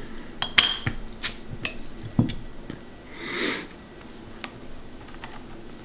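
Handling of a beer bottle and glass while opening the beer: a few sharp clicks and knocks, the heaviest about two seconds in, and a short hiss about three seconds in.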